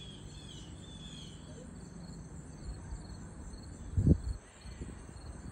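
Steady outdoor chorus of crickets and other insects, with a series of short falling chirps in the first second and a half. A brief low thump about four seconds in is the loudest sound.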